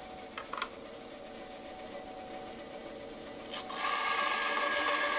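Bandsaw running with a steady hum, with a couple of light knocks as the thin wood is handled. Nearly four seconds in the blade starts cutting the wood and the sound turns much louder and higher-pitched.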